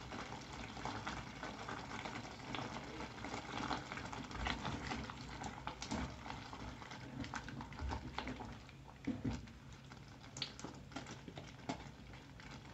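Pan of sausage and tomato sauce simmering faintly on the stove, with soft irregular clicks and pops as cream is squeezed from a carton and stirred in with a spoon.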